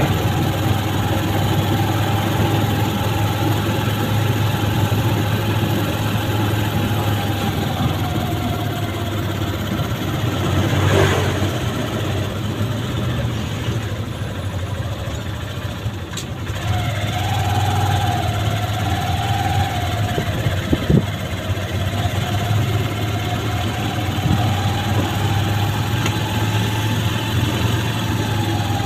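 Tricycle's motorcycle engine running as it rides, heard from inside the sidecar: a steady low drone with a wavering whine above it that drops away around the middle and comes back a couple of seconds later. A single sharp knock about two-thirds of the way through.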